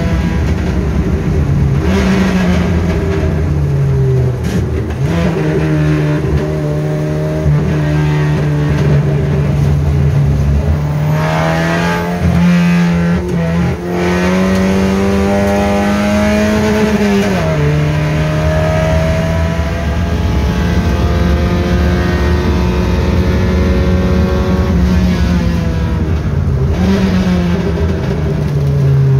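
Naturally aspirated Kadett GSI 2.0 four-cylinder with a 4-into-1 header and no air filter, heard from inside the stripped cabin while driven hard on track. The engine note climbs and falls repeatedly as it is revved and shifted, and a long climb ends in a sharp drop about 17 seconds in.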